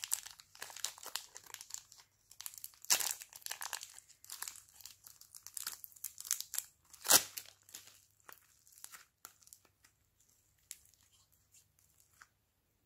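Thin clear plastic wrapper crinkling and tearing as it is peeled by hand off a soft block of store-bought slime. There is one sharp crack about seven seconds in, and the crackling thins out to a few faint ticks near the end.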